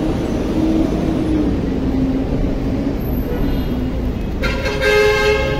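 Steady road traffic noise on a busy city street, with a short steady tone lasting about a second near the end.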